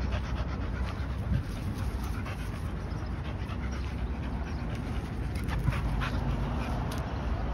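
Pit bull–type dog panting close to the microphone over a steady low rumble, with a few short knocks about two thirds of the way through.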